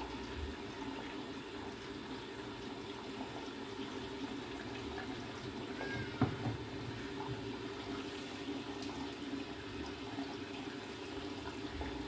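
Samsung EcoBubble washing machine taking in water early in a cotton wash: a steady rush of water pouring through the detergent dispenser into the drum. A single knock about six seconds in.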